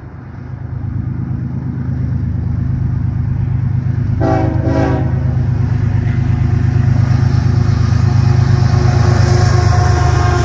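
GE ES44AC diesel locomotives leading an empty coal train, approaching with a loud, steady engine drone that grows louder over the first two seconds. About four seconds in, the lead unit sounds a short horn blast lasting about a second, with a brief break in the middle.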